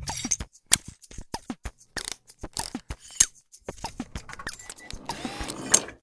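Logo-animation sound effects: an irregular run of sharp mechanical clicks and ticks, some followed by short falling tones. They grow denser near the end and stop on a sharp click.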